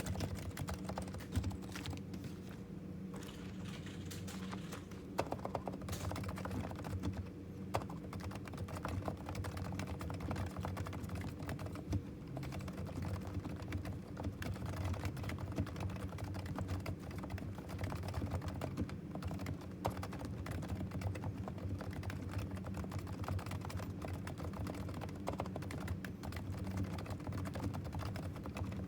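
Continuous typing on a Topre Realforce TKL R2 keyboard with silent 45 g Topre electro-capacitive switches: a steady, rapid stream of keystrokes with a few louder strokes here and there.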